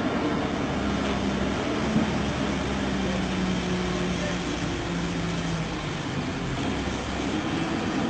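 A Caterpillar tracked excavator's diesel engine running steadily under load as the machine crawls on its tracks, with a low hum throughout. There is a single sharp knock about two seconds in.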